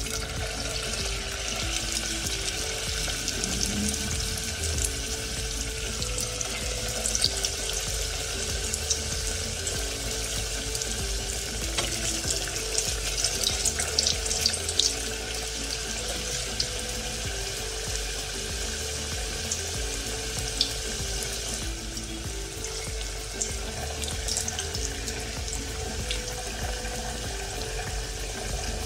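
Churro dough deep-frying in hot oil in a stainless steel pot: a steady sizzle with scattered crackles and pops, busiest around the middle.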